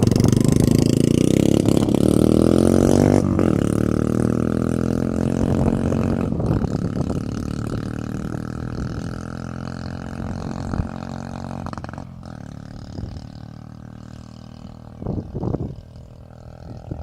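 Orcal Astor 125 motorcycle's 125 cc single-cylinder engine revving, its pitch rising for about three seconds, then dropping back and running on, slowly getting quieter. A few short sharp cracks stand out in the second half, which fits the exhaust popping.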